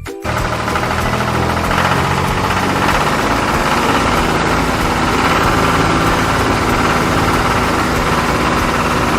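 An engine running steadily at a constant speed, starting right as the music stops.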